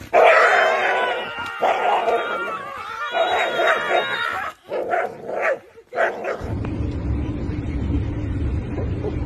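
A dog barking and yipping excitedly in a string of bending calls with short breaks while it bites and tugs at sticks. About six and a half seconds in this gives way to the steady low drone of a car's interior.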